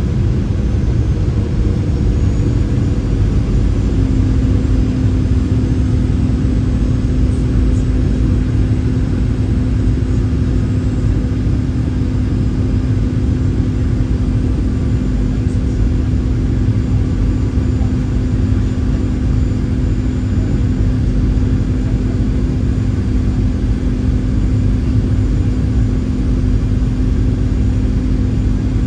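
Boeing 737-800 cabin noise on descent: the steady sound of its CFM56 jet engines and the airflow, with a steady engine hum that drops slightly in pitch over the first few seconds and then holds.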